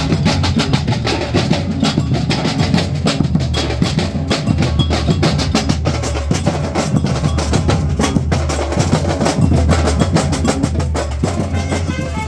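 Street band percussion playing a busy, fast groove: many rapid drum strikes over a low, steady bass line.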